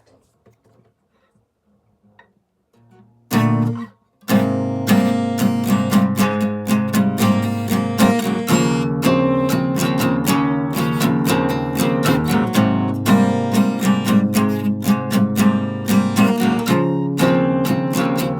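Acoustic guitar strumming. After a few near-silent seconds with faint small noises, one chord sounds, then a brief pause, and steady rhythmic strumming starts about four seconds in and carries on.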